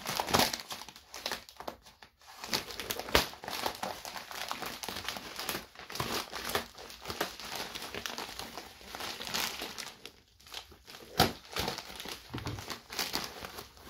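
White plastic bubble mailer being cut open with scissors and torn apart by hand: continuous irregular crinkling and rustling of the plastic, with several sharper snaps, the loudest about three seconds in and again near eleven seconds.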